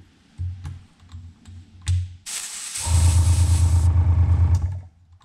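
Airbrush hissing as air is let through it, with the small air compressor humming steadily for about two seconds partway through. A few light clicks and knocks come before the hiss.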